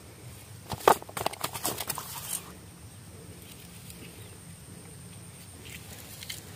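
A freshly caught rohu flapping on a rock: a quick run of wet slaps against the stone and the other fish about a second in, then a few faint taps near the end.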